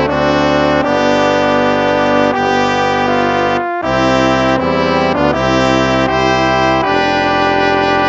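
Instrumental hymn played with a brass sound: slow, sustained chords that change about once a second, with a brief break between phrases a little before the middle.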